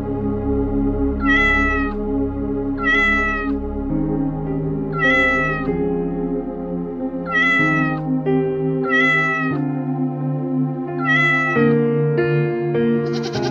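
Domestic cat meowing six times, each a short, high call of under a second, spaced a second or two apart, over soft background music.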